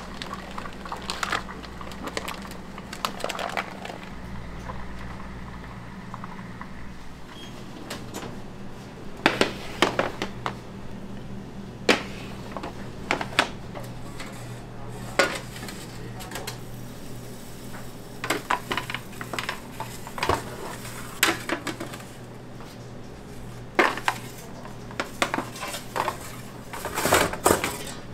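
Metal pans and kitchen tools clattering and knocking at irregular intervals, over a steady low machine hum. The strikes come mostly in the second half.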